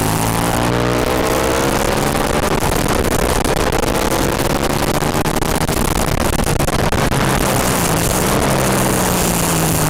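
Aprilia Tuono sport motorcycle's V-twin engine running hard on track, its pitch climbing under acceleration over the first few seconds and settling lower near the end, over a steady rushing noise.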